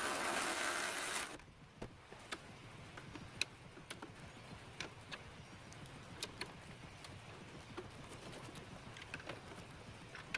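A short rush of noise in the first second or so, then scattered light clicks and clinks of metal hardware being handled while the strut mount nuts are fitted.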